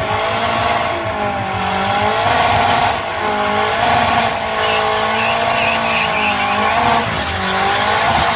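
Drag-racing car engines revving, their pitch rising and falling repeatedly, with short high squeals now and then.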